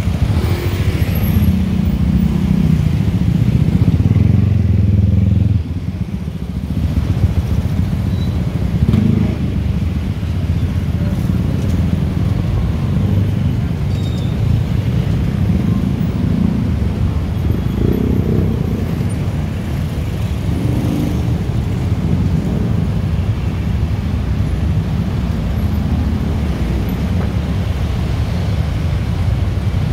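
Busy city road traffic, cars and motorcycles running past in a steady rumble. It is loudest in the first few seconds and drops off abruptly about five and a half seconds in.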